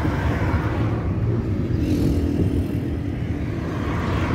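Car engine and tyre rumble heard from inside the cabin of a car driving along a city road; a steady low drone.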